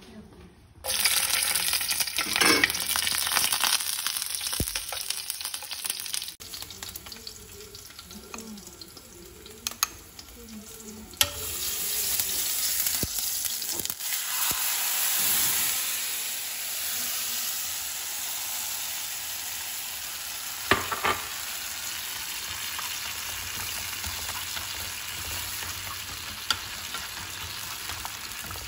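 Hot oil sizzling in a frying pan with garlic, starting suddenly about a second in. Midway, blended tomato is poured into the hot oil and the sizzle is at its loudest, then it settles to a steady sizzle as the sauce is stirred with chopsticks, with a few light clicks.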